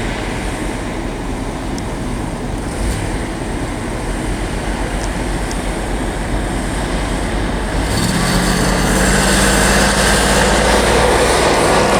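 Pickup truck engine running steadily while driving through deep snow, then revving up harder about eight seconds in.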